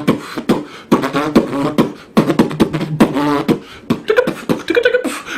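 A boy making rapid vocal mouth sounds, beatbox-like: clicks and short, wavering, pitched vocal bursts in quick succession.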